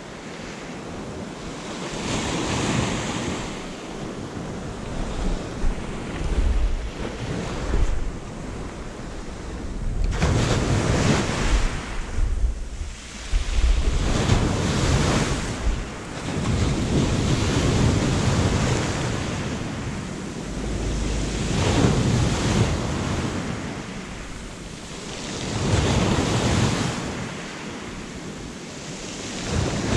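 Waves washing onto the shore, swelling and falling away about every four seconds, with wind buffeting the microphone.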